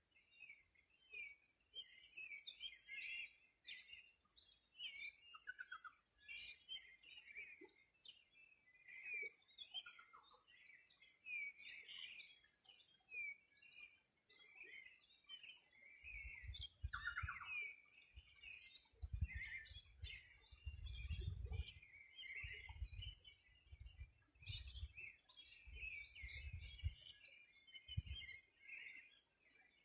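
Several songbirds singing and calling at once, a dense, faint chorus of quick overlapping chirps and short whistles. From about halfway in, patches of low rumbling noise come and go underneath.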